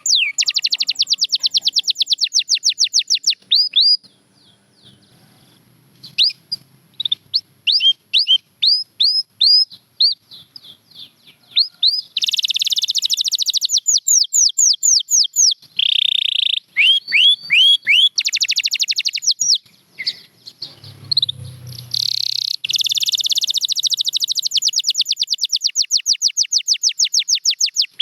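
Domestic canary singing: fast trilled rolls of repeated, quickly falling whistled notes, with a short lull about four seconds in before the song picks up again in denser rolls.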